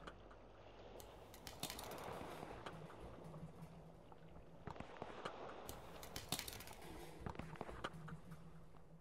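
Faint scattered clicks and small knocks at irregular intervals over low background noise, with a low hum that comes and goes.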